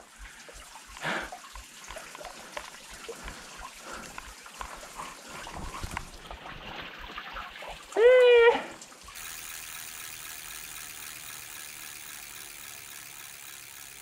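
A mountain stream trickling and splashing over rocks, with scattered knocks and scrapes of someone scrambling over the rocks and fallen logs. About eight seconds in comes a short voiced exclamation, and about nine seconds in the sound changes to a steadier, even hiss.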